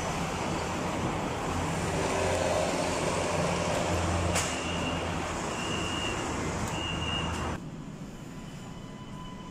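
MRT train at the platform with a steady low rumble and station noise. A little after a click about four seconds in come three short high beeps, the door warning signal, and then the sound drops abruptly to a quieter hum near the end.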